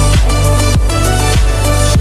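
Electronic background music with a steady kick-drum beat, roughly every 0.6 s.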